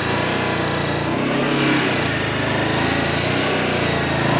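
Honda CB400X motorcycle's parallel-twin engine running steadily, its pitch lifting slightly about a second and a half in, then settling.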